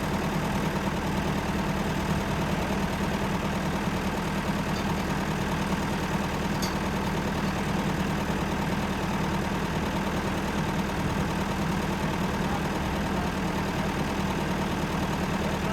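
David Brown tractor engine idling steadily while it warms up.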